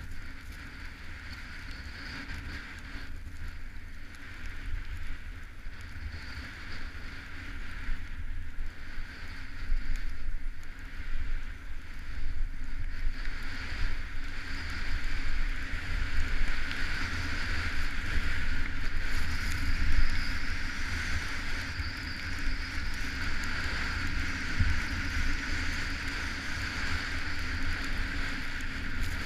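Wind rushing over the microphone of a camera worn by a downhill skier, with the hiss of skis sliding across groomed snow. It gets louder from about halfway through.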